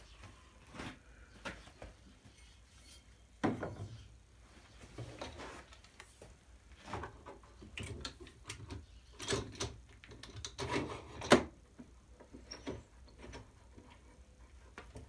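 Irregular wooden knocks, clicks and rubbing as a wooden window frame is handled in the workshop. The sharpest knocks come about three and a half seconds in and again near eleven seconds.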